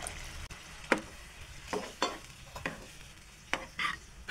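A metal spatula stirring a thin tomato curry sauce in a metal kadai, scraping and knocking against the pan about six times, with a light sizzle underneath. The hot water has just gone into the sauce.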